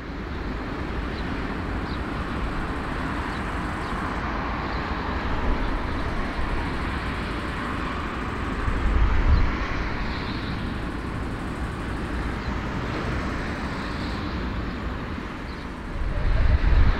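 Airbus A340-300 airliner taxiing: a steady jet-engine rush from its four engines at taxi power, swelling briefly partway through and rising near the end.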